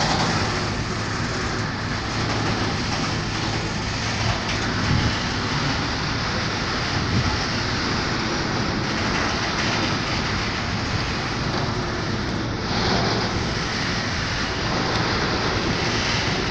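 Freight train of tank wagons rolling past: a steady, even noise of wheels running on the rails, with a low hum underneath.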